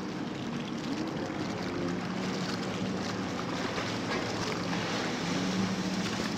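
Jet ski engine running at speed across choppy water, its engine note rising and falling as the rider turns, over a hiss of water and spray.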